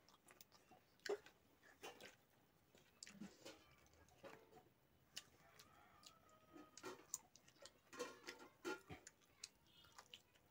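Faint, scattered clicks and smacks of someone eating chicken and rice by hand: chewing, lips smacking and fingers working food on the plate.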